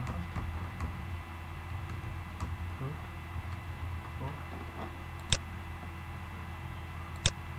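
Computer keyboard typing lightly over the first few seconds, then two sharp mouse clicks about two seconds apart. A steady low hum runs underneath.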